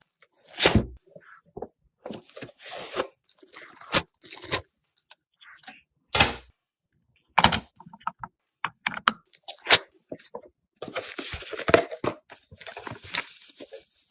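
PC parts and packaging handled during a computer build: a series of separate knocks, clicks and taps, then a longer stretch of scraping and rustling near the end.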